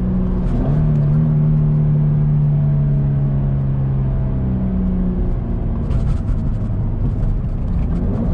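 Subaru BRZ's 2.0-litre flat-four with a Borla axle-back exhaust, heard from inside the cabin after a downshift: a steady drone whose pitch steps up a little about a second in, then dies away about five seconds in as the car slows for the exit. Road noise and light clicks or rattles follow near the end.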